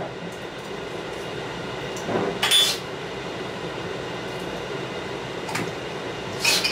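Two short clinks or clatters, about two and a half and six and a half seconds in, over a steady background hiss.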